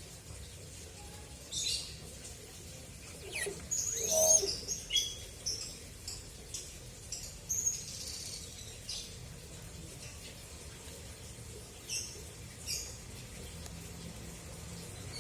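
Pet hill myna giving scattered short chirps and whistled calls, with a busier run of calls from about three to nine seconds in and two more near the end.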